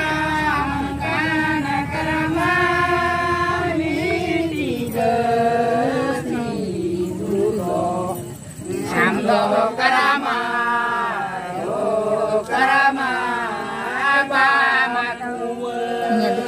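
A group of voices singing a Karam festival song together in long, wavering held notes, with a short break about eight seconds in.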